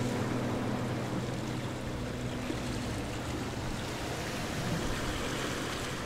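Background soundtrack of ambient music over a steady wash of ocean surf; the music's held tones fade out over the first half, leaving the surf sound.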